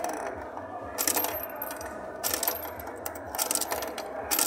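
Coins being fed into a kiddie ride's coin slot, clattering down through the coin mechanism several times, roughly a second apart.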